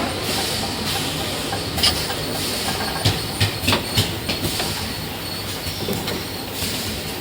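Filing machine running: a steady mechanical clatter, with a handful of sharp knocks in the middle.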